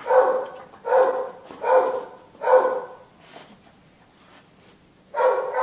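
A dog barking: about four barks a second apart, then a pause, and another bark near the end.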